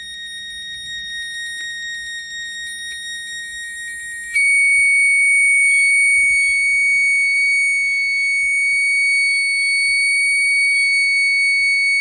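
Buzzer of a homemade transistor alarm circuit sounding a steady high-pitched tone. About four seconds in, the pitch steps up and the tone gets louder, then holds.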